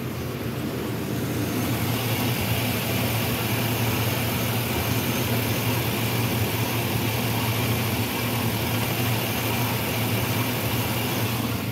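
Chevrolet Silverado 1500's Vortec engine idling steadily with the hood open. It grows louder over the first two seconds, then holds even. The owner suspects it may have a small miss.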